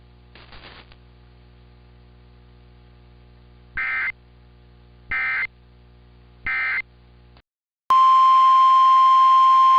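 Three short bursts of EAS SAME data tones, evenly spaced about 1.3 seconds apart, over a low electrical hum: the end-of-message code that closes an emergency alert. After a brief dropout, a loud, steady, single attention tone near 1 kHz starts about eight seconds in, of the kind NOAA Weather Radio sounds before the next warning.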